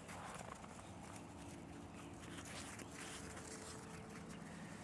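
Faint crunching footsteps in packed snow, over a faint low steady hum.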